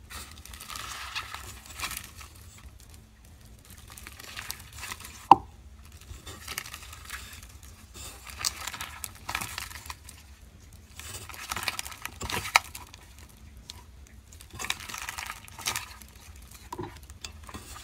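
Slime, some of it foam-bead slime, being pressed and kneaded by hand into a stainless steel mixing bowl: wet squishing and crackling in irregular bursts, with one sharp click about five seconds in.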